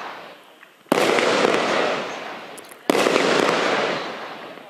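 A 50-shot 1.3G firework barrage cake firing: two sharp shots about two seconds apart, each bang trailing off over about two seconds.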